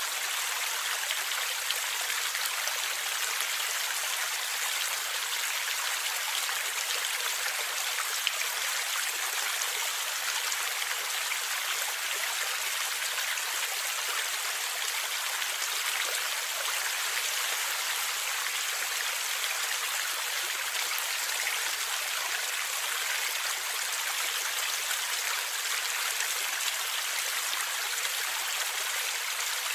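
Running water of a river gurgling steadily: an even rushing hiss, mostly high with little low rumble, and a few faint splashing ticks.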